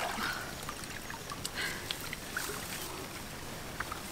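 Pond water sloshing and dripping around a person wading through it, with a few small splashes.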